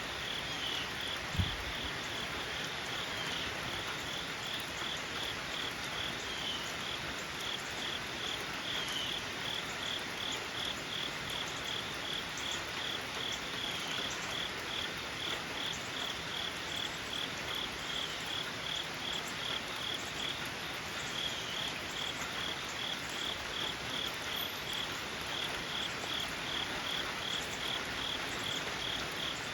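Insects chirping outdoors in a steady, even rhythm of about two pulses a second, with a single low thump about a second and a half in.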